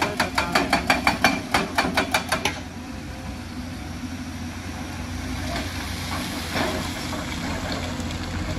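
Excavator-mounted hydraulic rock breaker hammering rock at about five blows a second, stopping about two and a half seconds in. After that the excavator's diesel engine keeps running steadily.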